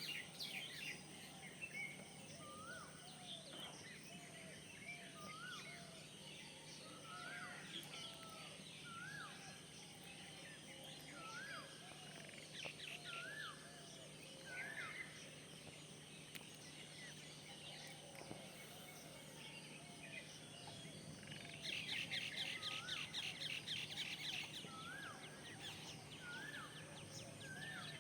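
Birds calling: one bird repeats a short, rising, hooked note every one to two seconds, and a fast rattling trill runs for about three seconds two-thirds of the way through. A faint steady hum lies underneath.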